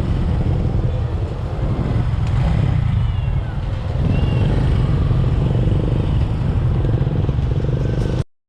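Road traffic noise: a steady low rumble of vehicle engines and tyres, which cuts off abruptly about eight seconds in.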